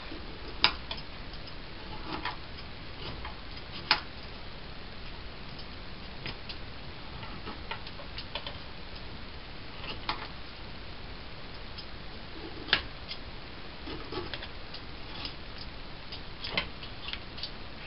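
Scattered light clicks and scrapes of a vegetable peeler paring the skin off acorn squash on a cutting board, with a few sharper taps, over a low steady hiss.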